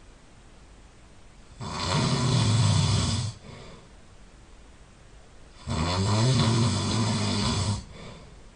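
A person snoring loudly: two long snores about four seconds apart, each lasting about two seconds.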